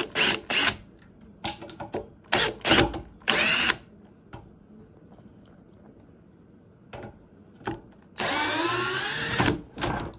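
Cordless drill/driver backing out door-hinge screws: several short runs in the first few seconds, then a longer run near the end.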